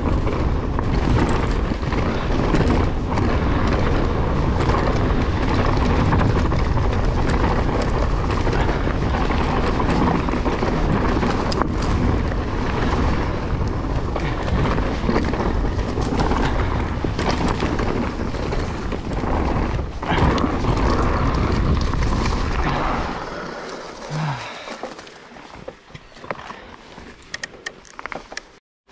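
GT Force Carbon Elite mountain bike riding fast over forest singletrack: tyre and trail rumble with wind on the camera microphone, broken by sharp knocks and rattles as it hits roots and bumps. About 23 seconds in the noise drops off sharply as the bike slows on smoother ground.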